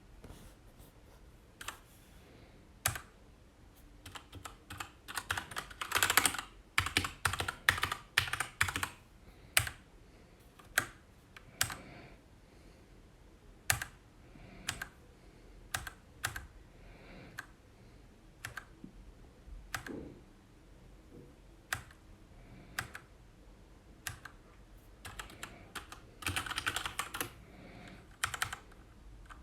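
Keys of a Keychron K2 mechanical keyboard being pressed: mostly single clicking keystrokes a second or so apart, with two flurries of rapid typing, one about a fifth of the way in and one near the end.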